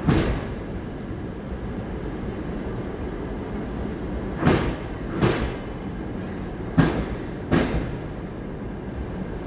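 Passenger train coaches rolling slowly past with a steady rumble. The wheels give sharp clacks over a rail joint: one at the start, then two pairs a little under a second apart as successive bogies cross.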